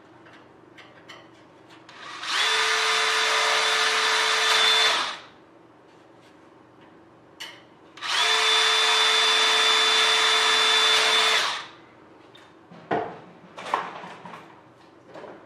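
Cordless drill with a 12-inch bit drilling holes through an airplane nose rib: it runs twice at a steady speed, each run about three seconds. A few light clicks and taps follow near the end.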